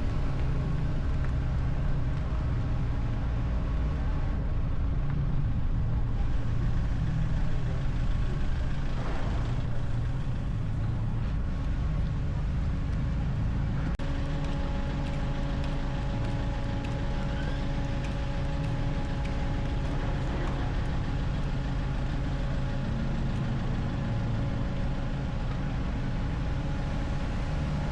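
A motor vehicle running steadily: a continuous low engine and road rumble with a faint steady hum that shifts slightly in pitch about halfway through.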